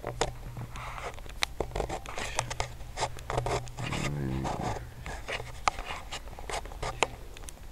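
Handling noise on the microphone: irregular scraping and rustling with many sharp clicks over a steady low hum. A short pitched sound comes about four seconds in.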